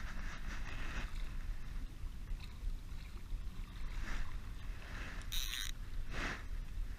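Wind rumbling on the microphone, with a few short hissy washes over it.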